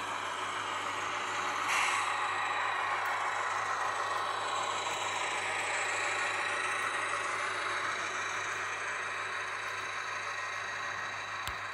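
Sound decoder of a PIKO SM42 model diesel locomotive playing the diesel engine sound through the model's small speaker as it pulls its freight wagons past, with the running noise of the model's wheels on the track. A brief hiss comes about two seconds in.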